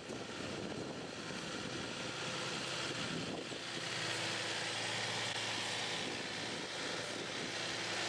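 Mack concrete mixer truck's diesel engine running at low speed as the truck drives slowly past, a steady engine drone that grows louder about halfway through.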